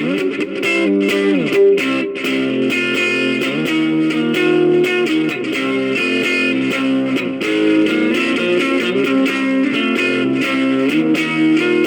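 Electric guitar played through an amplifier: sustained notes and chords, with a few notes bending in pitch in the first two seconds.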